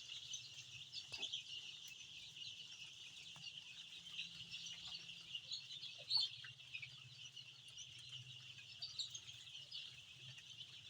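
A large flock of young chicks cheeping together in a steady, dense chorus of high peeps, with a few sharper peeps standing out. A single brief knock about six seconds in.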